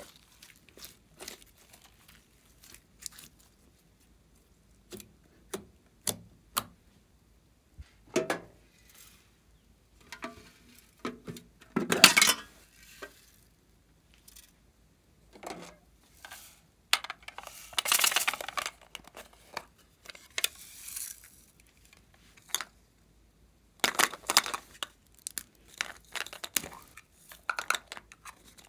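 Hands handling plastic containers and slime over a glass tray: scattered sharp clicks and taps with quiet gaps, and three longer rattling, rustling stretches as foam beads are poured into white slime.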